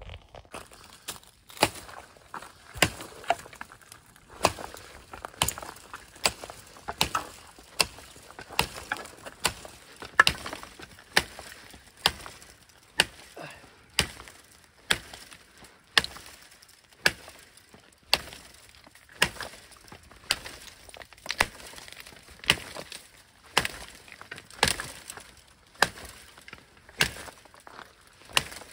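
A large fixed-blade knife chopping into a dead sapling, about one sharp, woody strike a second, steady throughout.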